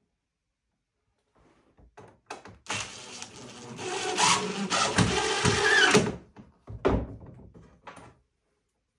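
Cordless drill running under load in wood for about three seconds, growing louder as it bites in, then stopping abruptly. A single knock follows about a second later.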